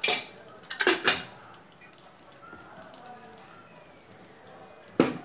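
Sharp metal clatters of kitchen utensils against an iron kadhai, two in the first second or so and one more near the end, over the faint hiss of ghee heating in the pan.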